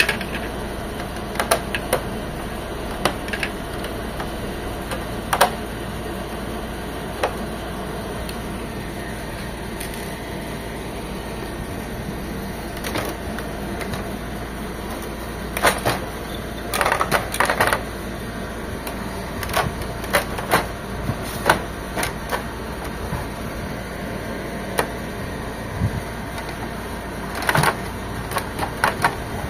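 Scattered clicks and short bursts of clatter from an HP Officejet 7612 printer's parts and screws being handled while it is taken apart, over a steady background hum.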